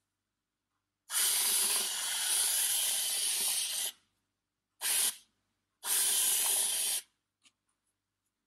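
Aerosol can of whipped cream spraying in three hissing bursts: a long one of about three seconds, a brief one, then one of about a second.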